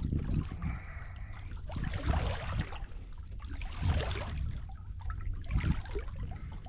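Sea water slapping and sloshing against a fishing kayak's hull in a few irregular swells, over a steady low rumble.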